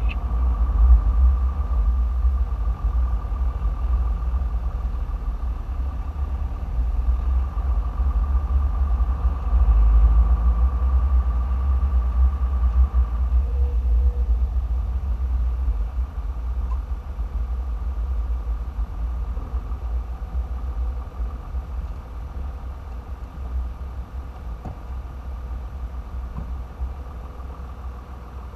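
In-cab sound of a Toyota Land Cruiser driving slowly: a low engine and road rumble with a faint steady whine over it, growing quieter in the second half as the truck slows in traffic.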